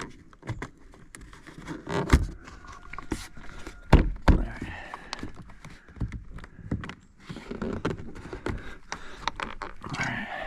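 A plastic door trim panel being pressed and knocked onto a 2008 Lexus LX570's door to seat its pop clips: an uneven run of clicks, knocks and scrapes, with louder thumps about two seconds in and around four seconds in.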